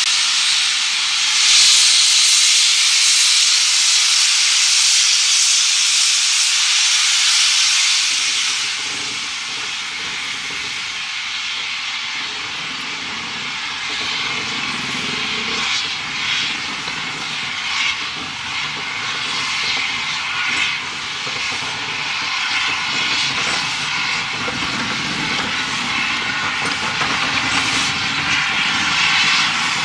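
WD 2-8-0 steam locomotive giving off a loud, steady hiss of escaping steam for the first eight seconds or so. The hiss then eases, and a low rumble with irregular short puffs comes in as the engine moves off slowly.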